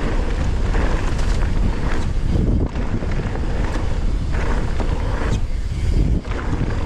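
Wind rushing over an action camera's microphone as a mountain bike rolls down the trail, with a few brief knocks from the bike over bumps.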